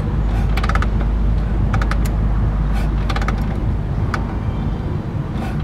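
1935 Harley-Davidson VLD's flathead V-twin kicked over with the ignition off and the throttle wide open, priming the cylinders with fuel before a start. Four short clusters of metallic clicks come about a second apart over a steady low rumble.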